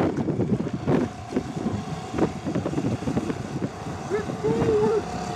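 A small 3.5 hp outboard motor running under way pushes an inflatable dinghy, with choppy water splashing and wind on the microphone. A short wavering tone sounds about four seconds in.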